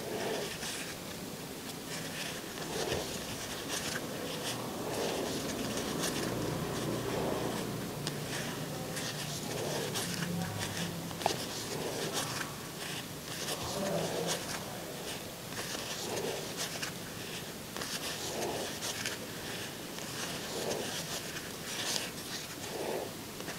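Crochet hook and yarn rustling and scraping softly as single crochet stitches are worked, with small irregular ticks and a soft pull of yarn every second or two.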